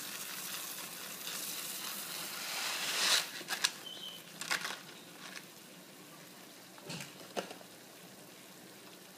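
Dry arborio rice pouring into a pan of oil and onions sizzling: a hiss of grains and frying that builds for about three seconds. Then come a few sharp clicks as the pour ends, and a fainter sizzle after.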